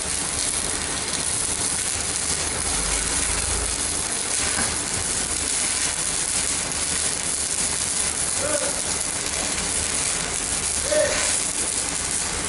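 Stick-welding arc from a CNR welding machine, a 4 mm electrode burning with a steady frying crackle and hiss.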